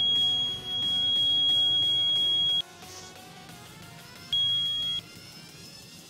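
Piezo buzzer of a homemade PIR motion alarm beeping: one steady high-pitched tone for about two and a half seconds, then a second, shorter tone of under a second about four seconds in.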